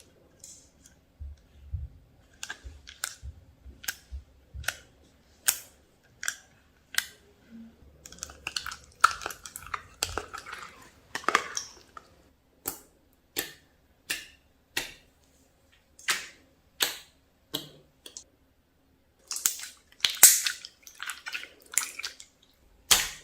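Homemade slime being squeezed and kneaded by hand, giving a series of sharp wet pops and clicks. They come about one a second at first, then in quicker, denser clusters.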